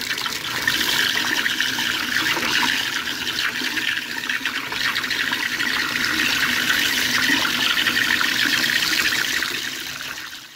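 Tap water running hard from a faucet into a sink, splashing through a fish net held in the stream as the net is rinsed; the sound fades out near the end.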